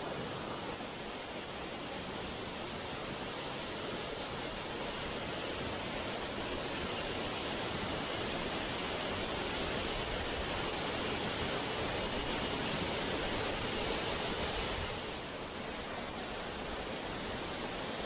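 Stream water rushing steadily over a bare rock slab at the top of a waterfall, where it spills over the cliff edge. It swells a little in the middle and eases slightly near the end.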